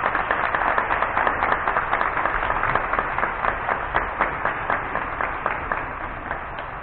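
A group of people applauding with dense, irregular hand claps that fade off toward the end.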